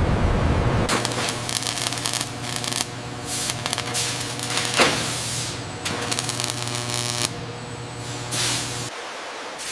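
Several bursts of spraying hiss over a steady machine hum. The hum cuts out near the end.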